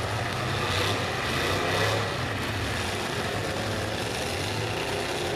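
Engines of several demolition derby cars running together, swelling louder briefly about two seconds in.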